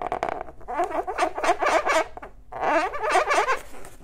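Permanent marker tip squeaking on a latex balloon as circles are drawn, in two bouts of rapid squeaks, the second starting a little under three seconds in.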